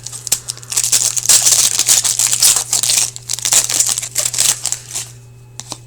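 Plastic trading-card pack wrapper being torn open and crinkled by hand, a dense crackling rustle that dies away about five seconds in, over a steady low electrical hum.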